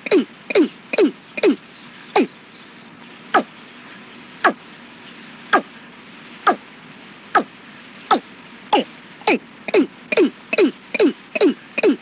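A watercock (cúm núm) calling, recorded from a decoy bird: a series of short, sharp calls, each sliding quickly downward in pitch. They come in a fast run at first, slow to about one a second in the middle, then speed up into a rapid run near the end.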